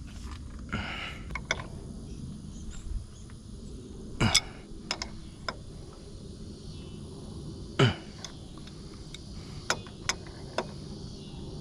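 Scattered metal clinks and knocks of hand tools on the air-line fittings of a truck's air compressor as they are tightened. The two loudest, about four and eight seconds in, are sharp clicks that each trail off in a short falling swish, and a few lighter ticks follow near the end.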